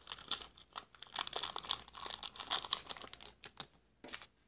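Thin plastic packet crinkling and rustling in the hands as pink slime powder is tipped out of it, a dense run of crackles that stops near the end after one last brief rustle.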